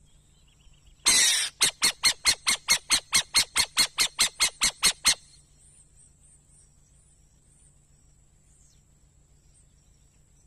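An owl gives one harsh screech about a second in, then a fast, even run of about sixteen short harsh notes, roughly four a second, which stops about five seconds in.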